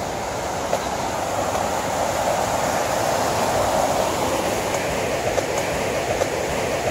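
Rushing mountain stream cascading over rocks: a steady rush of water that grows louder over the first few seconds.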